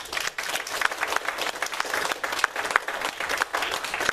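Congregation applauding: many hands clapping in a dense, even patter.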